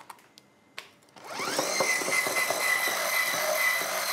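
Immersion blender with a whisk attachment switched on about a second in, its motor spinning up to a steady whine as it whisks an egg into creamed butter and sugar in a tall glass. A few light clicks come before it starts.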